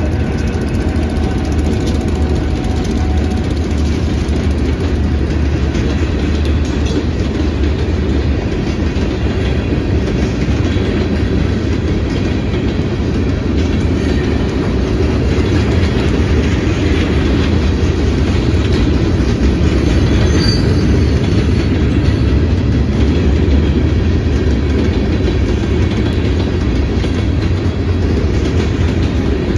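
Providence and Worcester freight train passing close by: diesel locomotives and then freight cars rolling through with a steady low rumble that swells a little about two-thirds of the way in.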